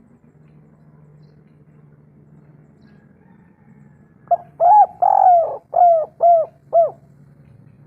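Spotted dove cooing: after a few quiet seconds it gives one phrase of six coos, two short, one longer drawn-out coo, then three short ones, ending about seven seconds in. A faint low hum sits underneath.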